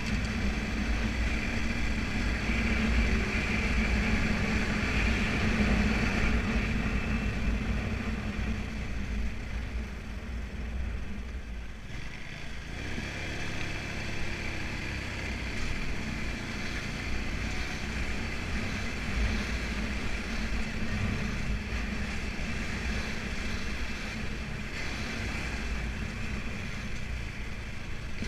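Motorbike engine running while riding along a street, with wind and road noise. It eases off about ten seconds in and picks up again a few seconds later.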